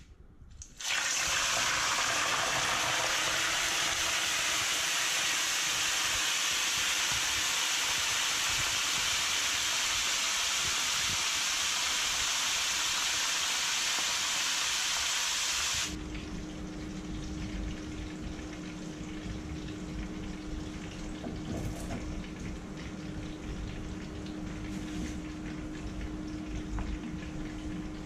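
A halved whole fish frying in a pan of hot cooking oil. A loud, steady sizzle starts about a second in as the fish goes into the oil, holds for about fifteen seconds, then cuts off abruptly. After it comes a quieter steady hum with a low rumble.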